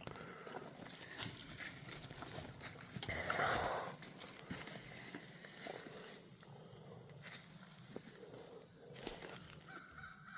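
Footsteps through forest leaf litter and twigs, with scattered snaps and a louder rustle about three seconds in. A faint steady high-pitched insect buzz runs behind.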